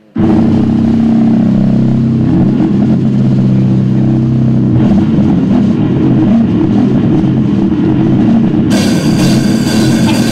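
Death metal band playing live. Distorted electric guitars and drums crash in abruptly at full volume, holding low chords, and loud cymbals join in near the end.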